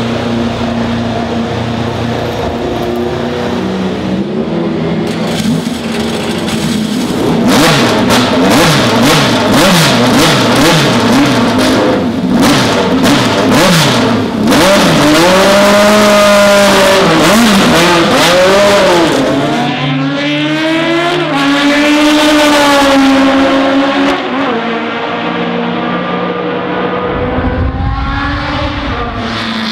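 V8 engine of a 1988 ADA Group C race car idling steadily, then revved hard in quick repeated blips, the pitch jumping up and down, followed by longer rising and falling revs. Later the car runs on the track, the engine note climbing as it accelerates past.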